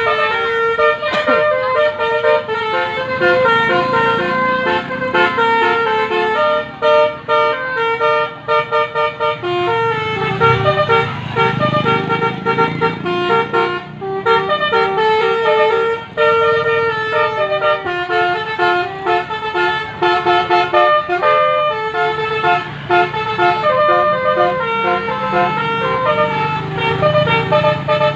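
Basuri musical bus horn playing a continuous melody of loud, steady horn notes stepping from pitch to pitch, with a low rumble underneath.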